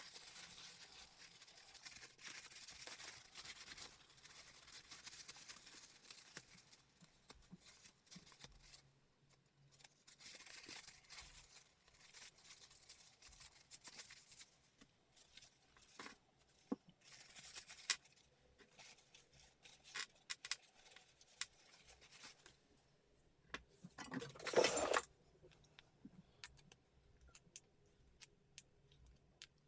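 Faint hand-work sounds: scraping and rustling with scattered sharp clicks, and one louder scrape of about a second near the end.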